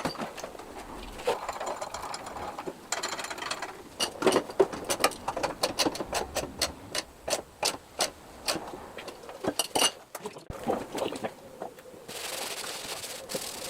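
Runs of quick mechanical clicks from a ratchet wrench tightening a new spark plug into the Briggs and Stratton engine. Near the end the clicking gives way to a steady rubbing hiss.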